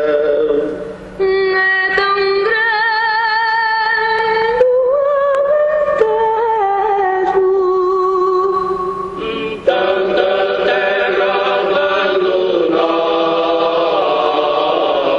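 Unaccompanied group singing in slow, long held notes with vibrato, no instruments; the sound becomes fuller, with more voices together, about ten seconds in.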